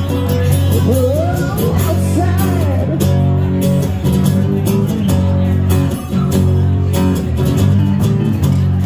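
A small live band playing: strummed acoustic guitar over electric bass, with a steady percussion beat ticking through it. A wavering melody line bends up and down during the first few seconds.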